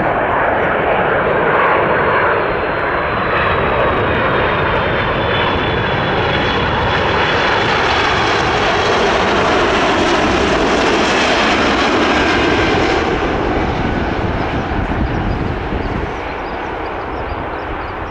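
Airbus A330-300 jet airliner landing, its engines running loud with a thin high whine that slowly falls in pitch. The sound swells toward the middle and thins out over the last few seconds.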